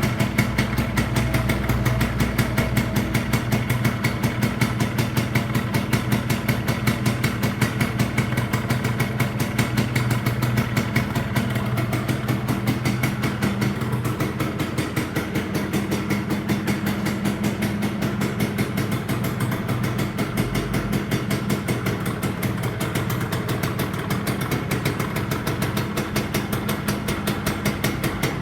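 Two-stroke motorcycle engine idling steadily, its pitch shifting slightly about halfway through.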